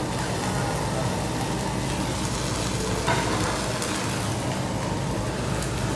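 Vegetables sizzling on a hot teppanyaki griddle over a steady low hum, with one sharp clack about three seconds in.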